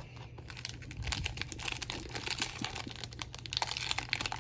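Trading cards and their foil pack packaging being handled: a dense run of small clicks and crinkling that gets busier about a second in.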